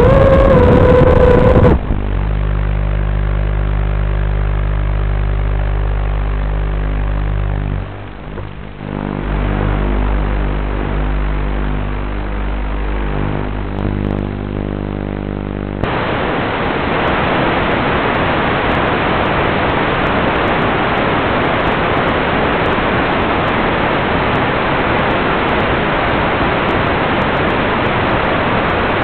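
Audio of an analog FPV video link: a quadcopter's motor whine wavering for a couple of seconds, then a steady buzzing hum until about sixteen seconds in, when it turns abruptly into loud even hiss of radio static as the video signal is lost.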